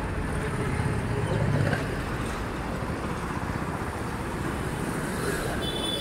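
City street traffic: a steady wash of passing vehicles, with one louder low rumble of a vehicle going by about a second and a half in.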